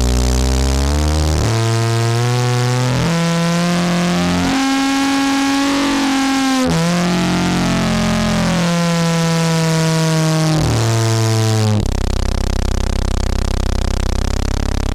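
Heavily distorted synthesizer tone, rich in harmonics: a sine wave through an analog low-pass filter with its resonance turned up, driven into the Erica Synths / Gamechanger Audio Plasma Drive distortion module. The pitch steps up through several notes to a peak about five seconds in, then steps back down. About twelve seconds in it switches suddenly to a low steady buzzing drone.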